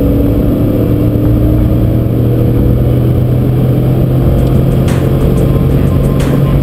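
Dodge Dakota's 4.7-litre V8 and exhaust droning steadily at cruising speed, heard from inside the cab over road noise, with a couple of sharp clicks near the end.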